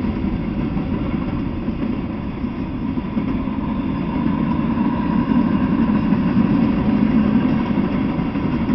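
Freight train of tank cars, boxcars and covered hoppers rolling past, a steady rumble of steel wheels on the rails, with a faint steady high tone over it. The rumble grows a little louder about halfway through.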